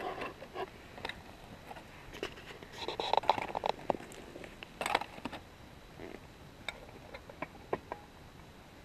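A small metal shovel scraping and scooping hot coals and ash onto the metal lid of a camp oven, with clinks of metal on metal. The scraping is busiest a few seconds in, then gives way to scattered light ticks.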